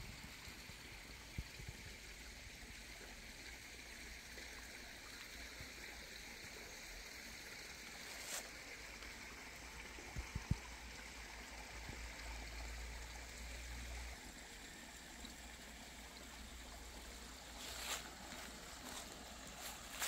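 Faint, steady trickle of a small forest stream, with a few crunches of dry fallen leaves underfoot, one about eight seconds in and more near the end.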